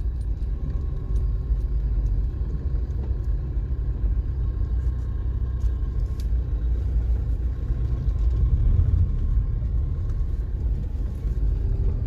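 Steady low rumble of a car driving slowly, heard from inside the cabin: engine and road noise.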